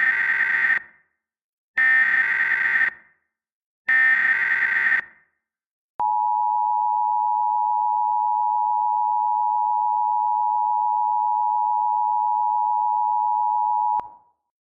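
Emergency Alert System header: three bursts of digital SAME data tones, each about a second long, then the steady two-tone EAS attention signal for about eight seconds, cutting off sharply.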